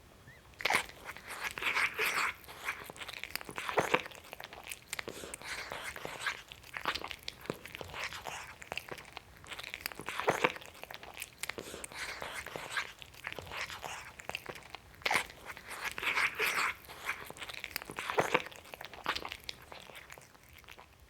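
A cat guzzling its food greedily: a quick, irregular run of wet clicks and bites, with louder clusters every second or two.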